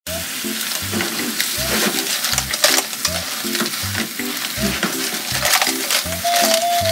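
Clams sizzling as they are stir-fried in a pan and turned with chopsticks, with shells clicking, under background music with a steady, even beat.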